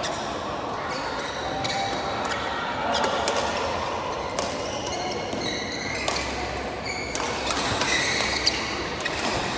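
Badminton hall sounds: scattered sharp smacks of rackets hitting shuttlecocks and short high squeaks of court shoes on the floor, over a steady din of the hall.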